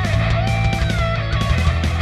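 Heavy rock band music: a distorted electric guitar, a Fernandes MG-120X hide model with an EMG 81 bridge pickup driven through a homemade Tube Screamer-style pedal into a Line 6 POD HD, playing over programmed drums and bass with a steady beat.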